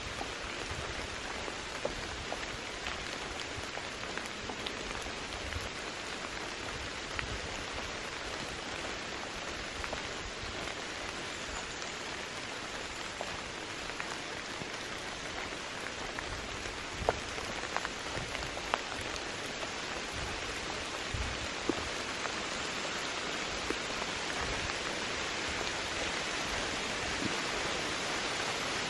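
Steady rain falling, an even hiss of drops with a few sharper drop ticks now and then.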